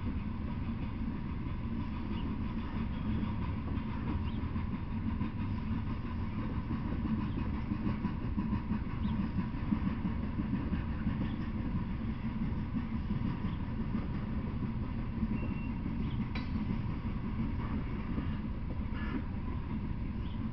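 Freight train of open-top hopper cars rolling past: a steady low rumble of wheels on the rails, with a few faint clicks near the end.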